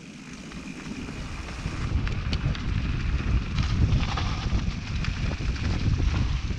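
Wind buffeting an action camera's microphone while a mountain bike rolls down a dirt trail: a low rumble of wind and tyres that builds over the first two seconds and then holds, with scattered small clicks and knocks from the trail surface.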